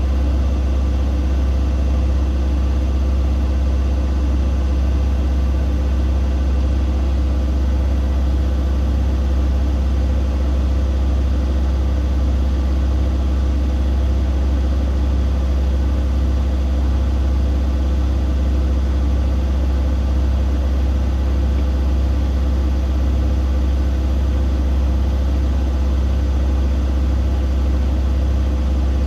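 Siemens Siwamat iQ 716 washing machine running steadily, a loud, constant low hum with steady tones above it and no pauses.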